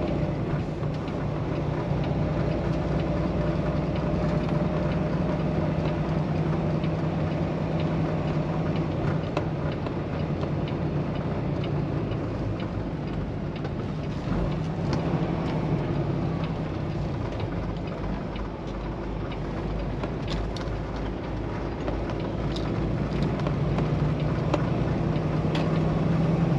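Peterbilt semi-truck's diesel engine running at highway speed, heard inside the cab with steady road and tyre noise. The engine note eases off somewhat in the middle and grows stronger again near the end.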